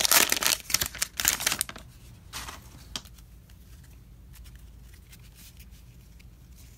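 Foil trading-card pack wrapper crinkling and tearing as it is peeled open, loud for about the first two seconds. Then a couple of short rustles and faint handling of the card stack as it comes out of the wrapper.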